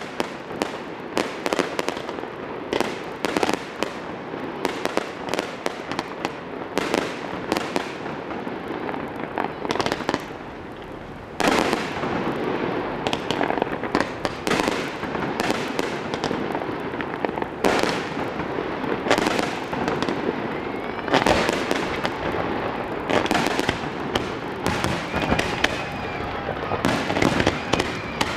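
Fireworks display: a rapid, continuous barrage of bangs and crackling from aerial shells bursting. There is a brief lull about ten seconds in, then the firing starts again sharply.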